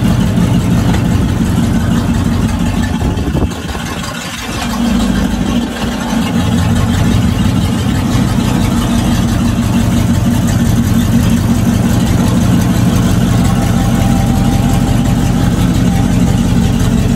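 Pontiac V8 in a 1950s GMC pickup running loudly at a steady idle through an open, loud exhaust. The note dips briefly about four seconds in, then settles back.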